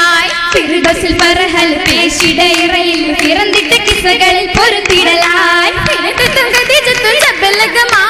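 Oppana: female voices singing a Mappila song in unison, with the dancers' sharp hand claps keeping the rhythm.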